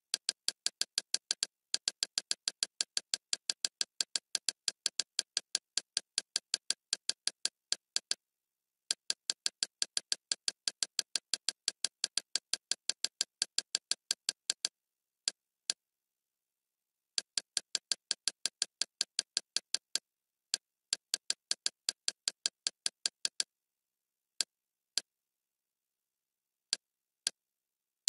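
Kodi's menu navigation click sound, repeating rapidly at about five or six clicks a second as a list is scrolled item by item. There are short pauses, and the clicks thin out to a few single ones near the end.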